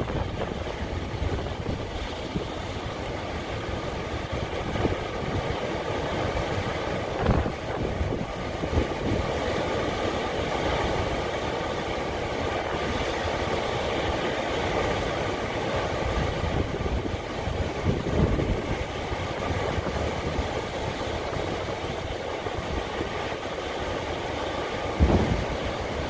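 Sea waves breaking and churning over rocks, a continuous surf wash under heavy wind buffeting on the microphone that adds a low rumble.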